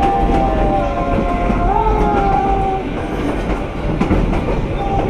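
Narrow-gauge passenger train running, heard from aboard: a steady rumble and clatter of the cars on the track, with wavering high squeals over it in the first half and again near the end.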